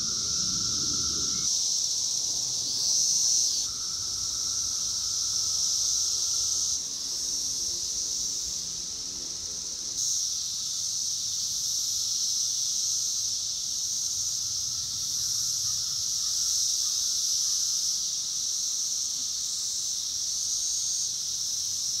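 Chorus of 17-year periodical cicadas singing in the trees: a steady, high-pitched, droning hum of thousands of insects. It swells briefly louder about three seconds in.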